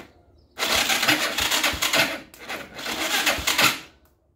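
Bashan 200cc ATV engine being cranked on the electric starter for about three seconds, in two goes, without firing. The owner puts the failed start down to a bad spark plug cap.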